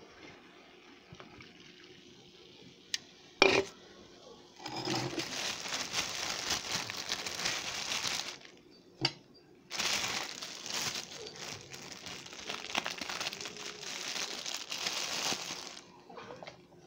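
Plastic bread bag of English muffins crinkling as it is handled, in two long stretches, with a sharp knock about three and a half seconds in and another about nine seconds in.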